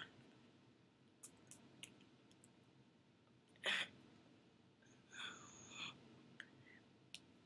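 Quiet room with faint breathy mouth sounds and small clicks from a person signing silently. There is one short, louder puff of breath a little past halfway through, and a soft breathy sound about two seconds later.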